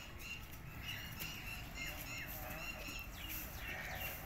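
Birds chirping: many short, quick calls, overlapping, over a steady low rumble.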